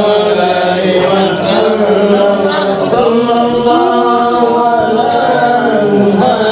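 A group of voices chanting Islamic devotional praise (shalawat) in unison, with long held notes that slide slowly between pitches.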